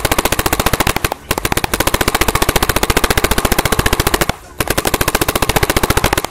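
Planet Eclipse Etek electronic paintball marker firing on semi-automatic in very rapid strings of more than ten shots a second. Firing breaks off briefly about a second in and again just after four seconds in.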